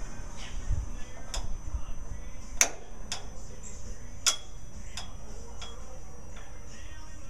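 About five sharp, irregular clicks and taps of generator engine parts being handled while the air cleaner housing comes off the carburetor. The loudest clicks come a little after two and a half seconds and a little after four seconds.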